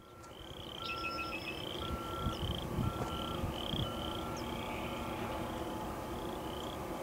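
Rural ambience fading in: a small animal calls with a short rising chirp about twice a second. A second, higher tone pulses on and off about once a second and fades out after about five seconds. A low rumble runs underneath.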